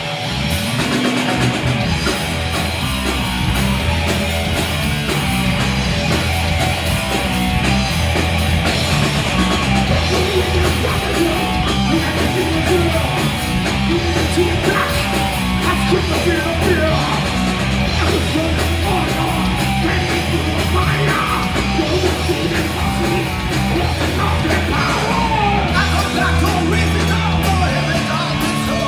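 Heavy metal band playing live: electric guitar, bass guitar and drums, with vocals.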